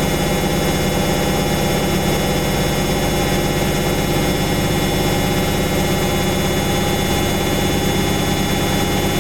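Samsung Eco Bubble front-loading washing machine on its spin cycle, the drum spinning at a steady speed with a constant hum over a rushing noise.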